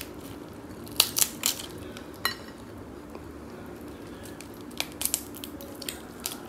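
Shell of a boiled blue crab cracking and snapping as it is pulled apart by hand: a few sharp cracks about a second in, another near the two-second mark, and a cluster of smaller snaps near the end.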